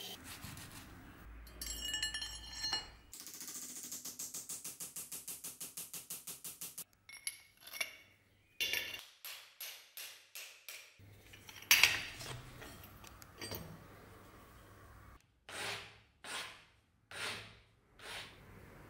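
A run of metalworking sounds: metal clinks and a quick, even stroking, then hammer blows on metal over an anvil, the loudest a sharp strike about two-thirds in, and near the end four long strokes of a hand file on metal held in a vise.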